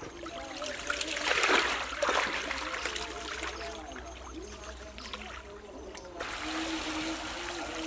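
Shallow muddy water splashing and sloshing as a woven bamboo fish-trap screen is moved through it by a person wading. The splashing is loudest between one and two and a half seconds in, then turns to a steadier wash of water.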